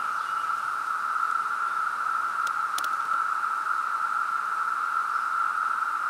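Chorus of 17-year periodical cicadas: a steady, unbroken high-pitched drone, with a couple of faint clicks about halfway through.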